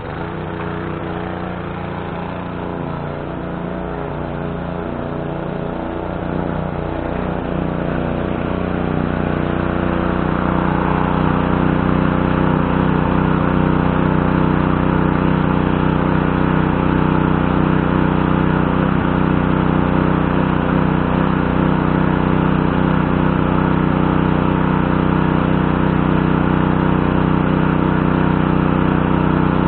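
Pressure washer's Briggs & Stratton 550E 140cc engine running steadily, starting suddenly and getting louder over the first ten seconds or so as a hiss of water spray builds in over the engine note.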